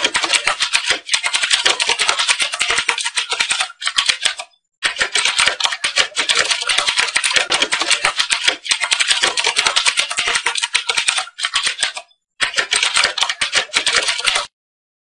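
Typewriter sound effect: fast, continuous key clatter that pauses briefly twice and stops abruptly near the end.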